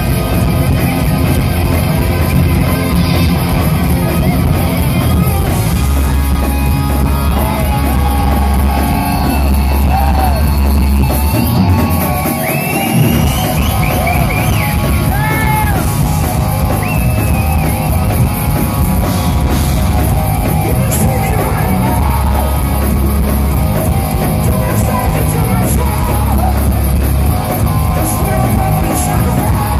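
Heavy metal band playing live: distorted electric guitars, bass and drums, loud, with a singer's vocals. The bass and kick drum drop out briefly about twelve seconds in while bending high notes ring over the top.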